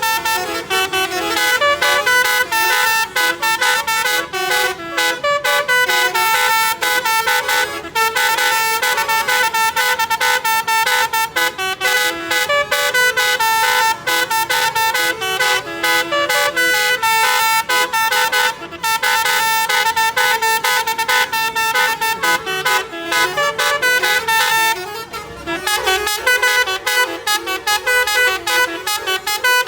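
Basuri musical bus horn playing a fast tune of short notes that change pitch many times a second, without a pause.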